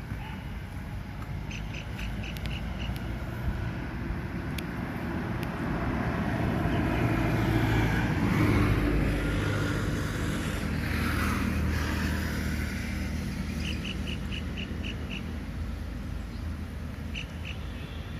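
An engine running steadily, swelling louder in the middle and then easing off, with short runs of a bird's rapid high chirps a few times.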